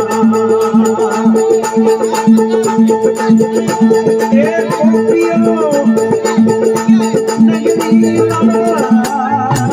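Live Rajasthani folk bhajan music: a harmonium holds steady notes, while dholak drum and small hand cymbals keep a brisk, even beat.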